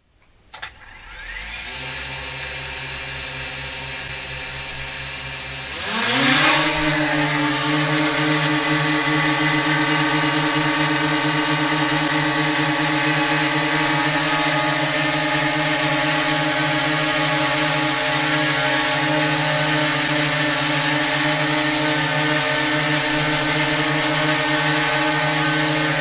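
DJI Mini 2 quadcopter fitted with Master Airscrew Stealth propellers. Its motors start and run at idle with a steady hum of several tones. About six seconds in they rise sharply in pitch and loudness as it lifts off, then settle into a steady, louder hover.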